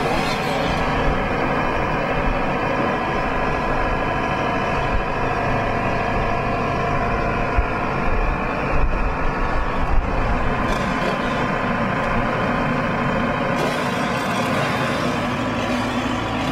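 Atlas wheeled excavator's diesel engine running steadily while the boom lifts a fallen tree, with a few short knocks about eight to ten seconds in.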